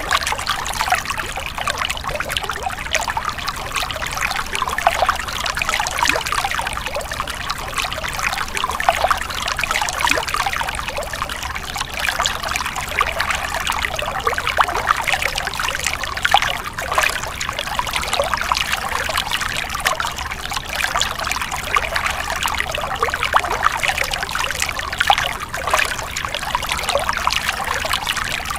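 Stream water trickling and splashing over stones: a steady babble made of many small splashes.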